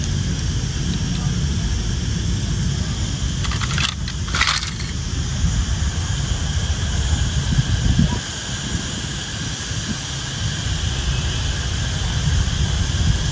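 Wind buffeting the microphone, a steady low rumble, with two short rustling bursts about four seconds in.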